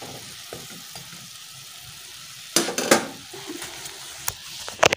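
Water simmering in an aluminium pot of instant noodles with a steady hiss. About halfway through, a metal spoon clatters and scrapes against the pot, the loudest sound here, followed by a few sharp clicks near the end.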